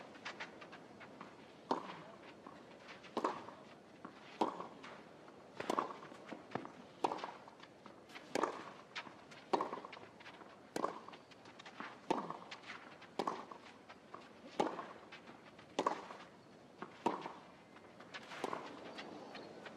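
Tennis ball struck back and forth with racquets in a long baseline rally on a clay court, about fifteen sharp hits at an even pace of roughly one every second and a quarter, with footsteps on the clay between hits.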